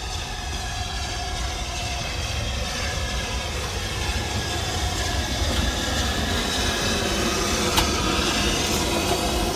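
BR Standard Class 5 steam locomotive No. 73082 running into the station platform, its rumble and wheel-on-rail noise growing louder as it draws alongside. A sharp click comes near the end.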